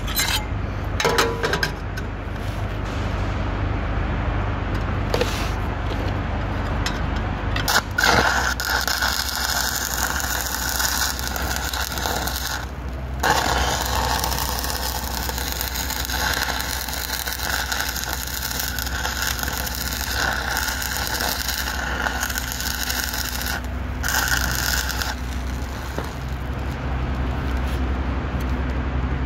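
Shielded metal arc (stick) welding with a 5/32-inch 6011 electrode at about 101 amps: the arc crackles and sputters steadily from about eight seconds in until about 25 seconds, breaking off briefly twice. A few sharp clicks come before the arc is struck, over a steady low hum.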